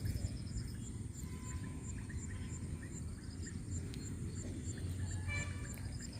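Outdoor ambience: a steady low rumble under short, high chirps repeating evenly about three times a second, like an insect calling, with a brief high trill near the end.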